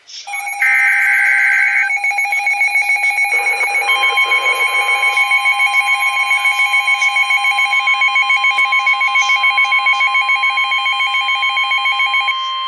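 The last burst of an Emergency Alert System SAME header, a short digital data screech, followed by a rapidly pulsing electronic alert tone. About four seconds in, a steady alarm tone joins it: the 1050 Hz National Weather Service warning tone. Both tones cut off near the end.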